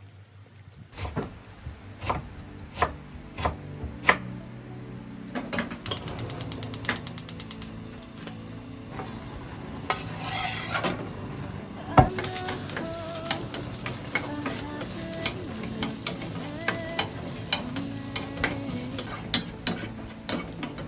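Kitchen handling sounds: a series of sharp clicks and knocks from utensils and containers, with a quick run of rapid, even clicking a few seconds in and one louder knock about halfway through.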